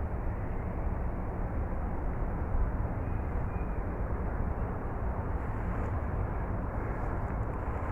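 Steady low outdoor rumble with no clear events in it, heaviest in the bass.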